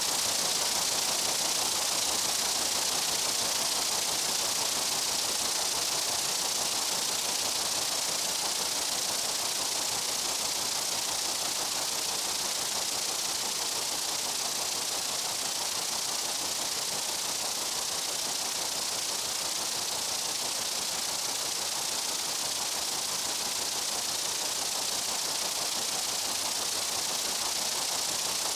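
Dense insect chorus blended into a steady high hiss, with no separate calls or wingbeat buzz standing out.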